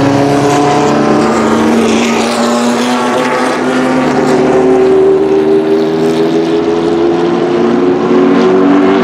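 1969 Alfa Romeo T33/3's 3.0-litre V8 racing engine at full throttle as the car drives past and away, its note climbing slowly as it accelerates.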